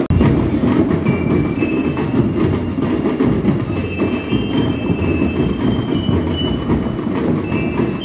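Marching band playing, with bell lyres ringing out a melody of short, bright, held notes over a dense low rumble of drums.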